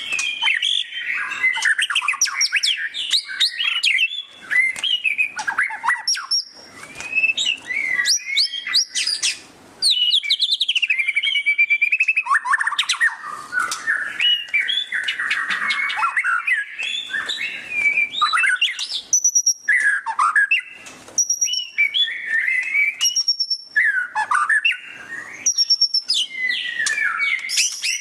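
White-rumped shama singing loudly: a fast, varied run of chattering twitters, trills and sliding whistled notes in the rapid 'ngeriwik' style, delivered in phrases separated by short pauses.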